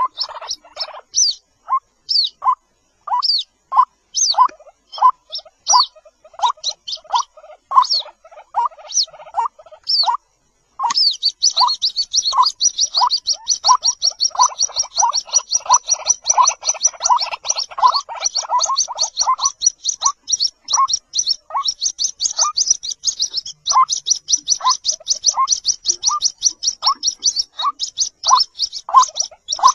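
White-breasted waterhen chicks calling: a series of short repeated calls, about two a second, under high-pitched cheeping that turns into a fast unbroken chatter from about a third of the way in.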